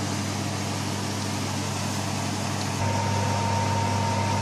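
Steady mechanical hum with a low drone. About three seconds in it gets a little louder and a faint, steady high whine joins it.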